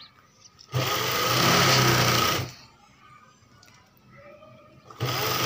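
Electric sewing machine stitching in two short runs, one about a second in lasting nearly two seconds and another starting near the end. Each run has a steady motor hum under the clatter of the needle, and there are pauses between the runs.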